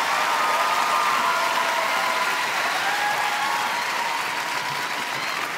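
Studio audience applauding and cheering: a steady wash of clapping that eases a little near the end.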